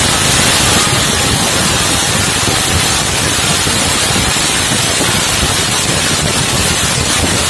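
Ground fountain firework (flower pot) shooting sparks with a steady, loud hiss.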